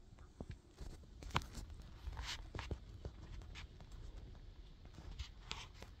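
Footsteps on the forest floor: irregular crunches, snaps and rustles of debris underfoot, with a sharp snap about a second and a half in and short crunchy rustles a little past two seconds and again near the end.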